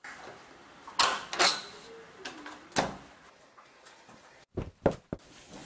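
Several sharp knocks and thumps of a wooden door being handled, spread over the first three seconds, then a quick cluster of rattling knocks near the end as the door is worked.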